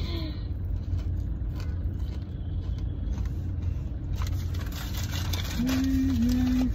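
Steady low rumble of a car heard from inside the cabin, with rustling and handling noise from about four seconds in as food on the seat beside her is reached for. Near the end, a brief steady closed-mouth hum from the woman.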